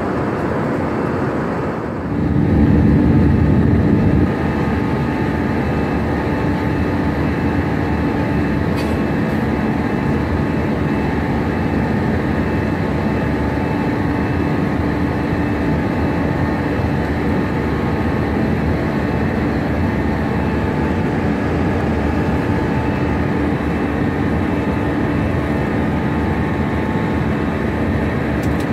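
Steady drone of a jet airliner's engines and rushing air, heard from inside the passenger cabin beside the wing in flight, with a low steady tone running through it. It swells louder for a couple of seconds about two seconds in, then settles back.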